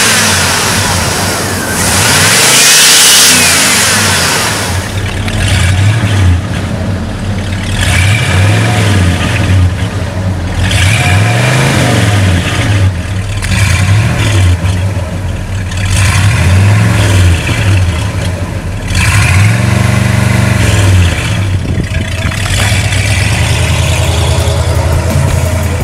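1976 Pontiac Grand Prix's V8 engine being revved again and again, each rev climbing and dropping back, then settling into a steady idle near the end.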